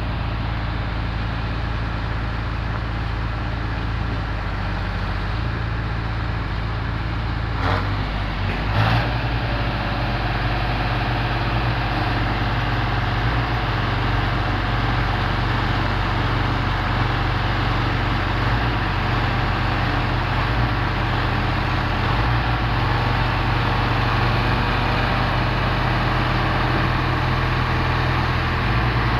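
Heavy diesel machinery engines running steadily with a deep, constant drone. Two brief knocks about eight and nine seconds in, after which the engine sound gets slightly louder.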